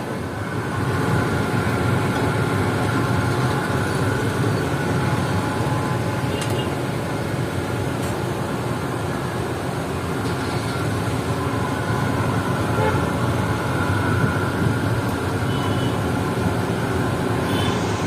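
Steady street traffic noise with vehicle engines running and occasional short horn toots.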